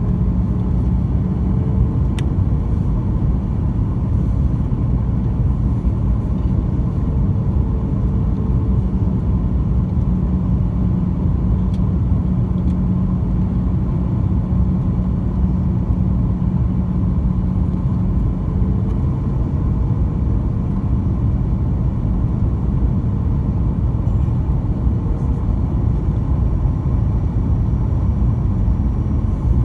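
Boeing 737-900 cabin noise on descent: its CFM56 turbofan engines and the airflow make a steady roar, with a low hum that drops out about two-thirds of the way through.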